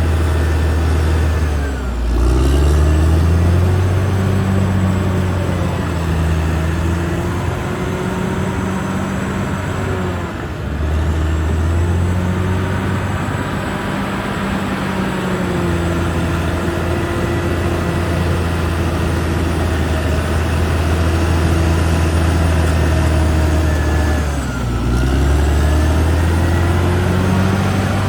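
Caterpillar D6R XL bulldozer's diesel engine running hard, its revs dropping sharply and climbing back three times.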